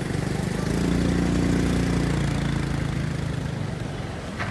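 A motor vehicle's engine passing close by: a steady hum that builds over the first second and fades away after about three seconds, with a short click near the end.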